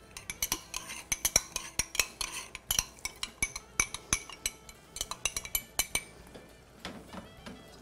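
A spoon clinking rapidly and repeatedly against kitchenware while cornstarch is mixed in, for about six seconds, then stopping.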